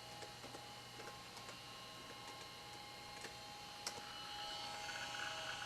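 Toshiba Tecra 8000 laptop running quietly: a faint steady whine from its drive and fan, with scattered light clicks and one sharper click about four seconds in. Near the end a faint buzzing chatter rises, typical of the hard drive working.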